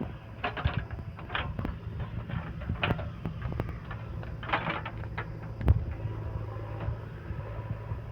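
Diesel engine of a backhoe loader running steadily, with intermittent clanks and rattles as the machine works, loading mud and gravel.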